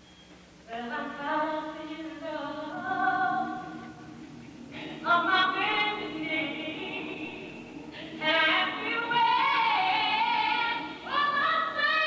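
A choir singing in long phrases of a few seconds each, starting less than a second in.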